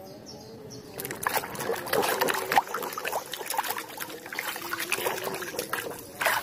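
Muddy water splashing and sloshing in a plastic tub as a hand scrubs a plastic toy camel under the water, with irregular splashes and drips starting about a second in.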